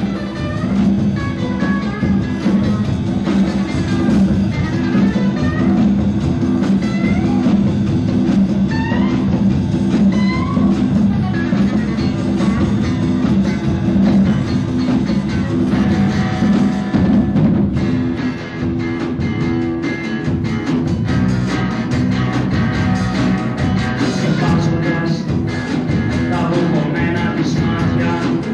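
1980s Greek rock band recording playing: electric guitar, bass and drums, with short rising, sliding lead notes in the first half. The arrangement changes about two-thirds of the way through.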